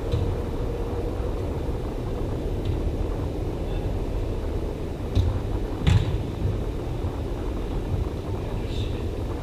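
Steady low rumble of background noise, with a few sharp knocks of a soccer ball being kicked, the loudest about six seconds in.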